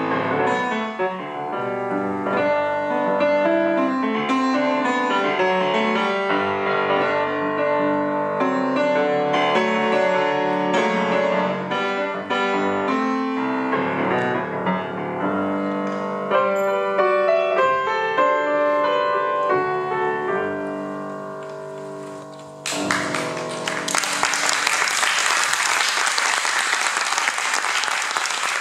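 Solo grand piano playing a gato, an Argentine folk-dance piece, which ends on a chord that dies away. About 23 seconds in, audience applause breaks out and continues.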